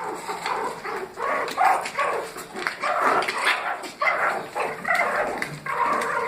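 Dog barking and yipping over and over, short calls coming two to three a second.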